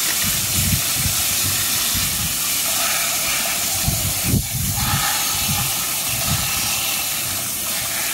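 Garden hose spray nozzle spraying water in a steady hiss, splattering onto a small plastic toy and wet hands over a plastic basket, with a brief break in the spray about halfway through.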